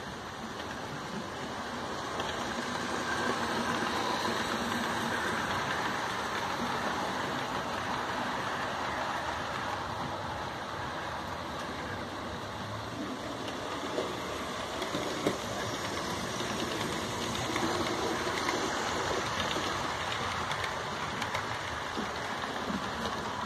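A Tri-ang Hornby OO-gauge model train running on the layout's track: a steady whirr of motor and wheels on the rails that swells and eases as the train moves past, with two sharp clicks about midway.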